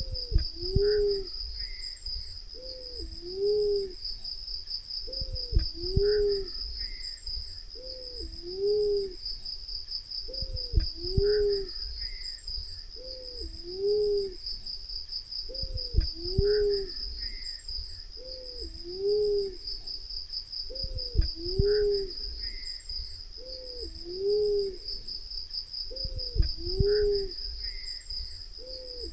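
Black-naped fruit dove (Ptilinopus melanospilus) cooing: a low two-note coo repeated about every two and a half seconds, over a steady high insect trill.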